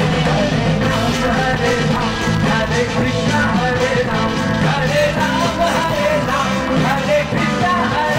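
Live rock band playing: distorted electric guitars, bass and a drum kit, with a man singing over them.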